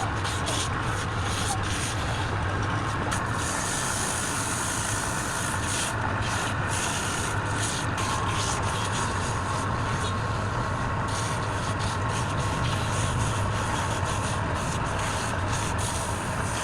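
Wood lathe running steadily, its motor humming under a continuous hiss from the spinning workpiece being worked.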